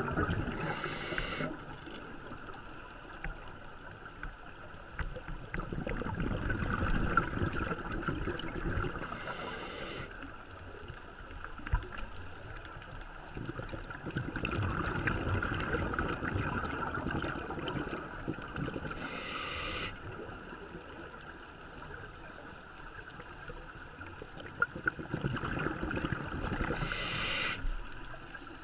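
Scuba diver breathing through a regulator underwater: four short hisses about nine seconds apart, with stretches of bubbling rumble between them.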